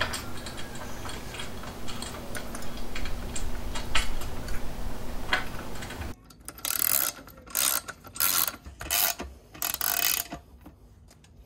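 Hand ratchet clicking in about five short runs as a bolt is tightened into a black steel ladder bracket. Before that, a few light clicks of metal parts being handled over a steady low hum.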